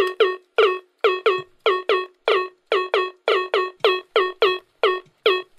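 Hit Stix 2 air-drum toy's electronic drum sound through its amplifier: a steady run of short, pitched synthetic drum hits, about four a second, each dipping quickly in pitch and dying away fast.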